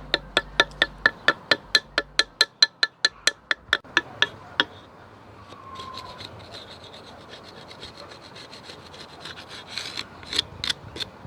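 Screwdriver blade scraping the cured cement of a cast pumpkin, shaving down a moulding seam: quick even strokes about four a second, then a softer steady scraping, and a few harder strokes near the end.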